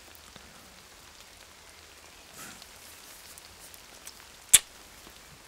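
Light rain falling steadily, with a single sharp, loud crack about four and a half seconds in.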